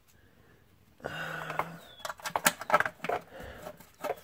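Sharp clicks and knocks of hand tools and small metal parts being handled under a car. They begin about a second in, after a brief hush.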